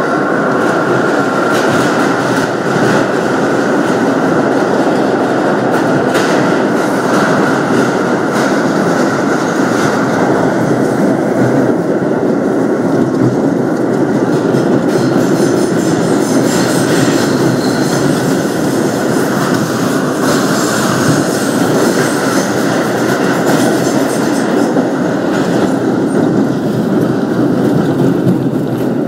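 New York City Subway train running at speed through a tunnel: a loud, steady rumble and clatter of steel wheels on the rails, with a high wheel squeal joining in through the middle stretch.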